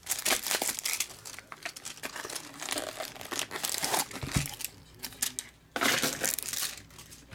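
Plastic trading-card pack wrappers crinkling and tearing as they are handled and pulled open by hand, in irregular bursts, loudest about six seconds in. A short dull knock comes about four and a half seconds in.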